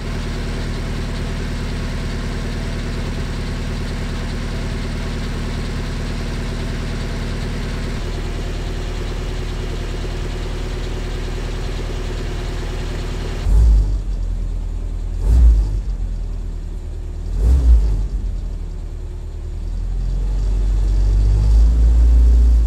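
Willys Jeep's L134 four-cylinder flathead engine, fed by a rebuilt Carter carburetor, idling steadily at the tailpipe. About two-thirds of the way through it is revved in three short blips, then the revs rise again and hold near the end.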